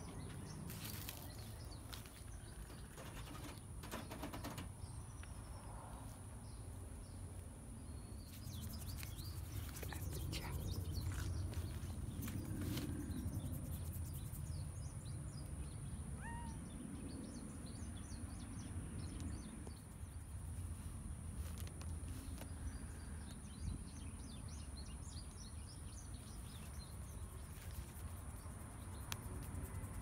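Outdoor ambience: small birds chirping faintly, more often in the second half, over a constant low rumble and a steady high hiss, with a few scattered clicks in the first third.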